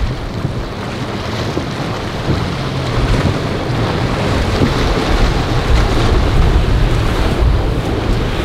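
Express cruiser motor yacht running at speed through rough water: a low engine drone under the rush of spray and waves, with wind buffeting the microphone. It grows a little louder about three seconds in.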